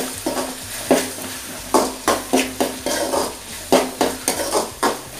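Metal spatula stirring chopped tomatoes and onions in an aluminium kadai, scraping and clinking against the pan about two or three times a second, over a light sizzle of frying in oil.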